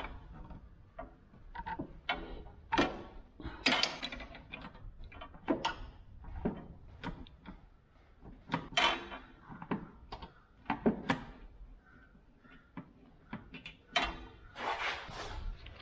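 Hand wrench clicking and knocking against the metal fittings of an A/C receiver-drier as a plug is worked loose, in irregular short clinks with gaps between.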